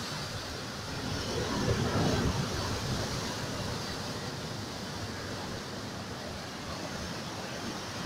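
Ocean surf breaking over a rocky shore: a continuous wash of churning water, with one wave crashing louder about two seconds in.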